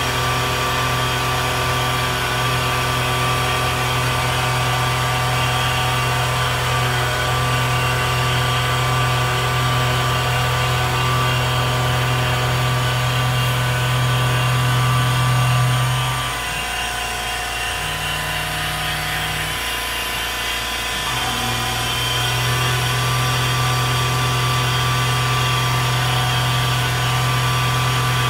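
Precision Matthews PM-25MV milling machine's spindle running with an end mill cutting aluminium under CNC feed, a steady machine hum over the hiss of the cutting and the air blast. About two-thirds of the way in the low hum drops and shifts for a few seconds, then returns.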